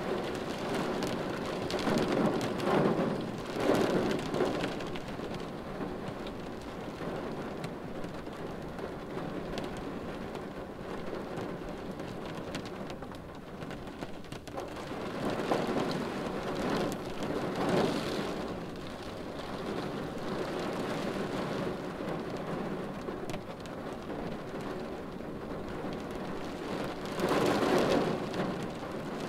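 Steady rain pattering on a car windshield, swelling louder three times in heavier bursts.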